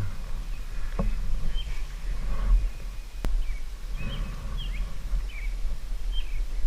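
Birds chirping in short rising and falling calls, mostly in the second half, over a steady low rumble, with a sharp click about three seconds in.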